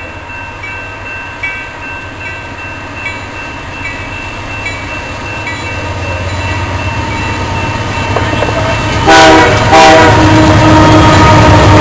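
A level-crossing warning bell dings steadily while the low rumble of Canadian Pacific intermodal train 152's lead locomotives grows louder as they approach. About nine seconds in, the locomotive's horn sounds a short blast, then a long one that carries on as the train reaches the crossing.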